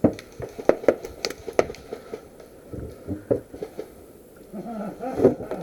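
Airsoft gun firing a quick string of single shots, sharp cracks about three a second at first, then more spaced out. A short voice-like sound comes near the end.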